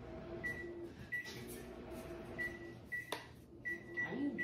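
Microwave oven being operated: several short, high beeps at uneven intervals over a low steady hum, with a sharp click about three seconds in.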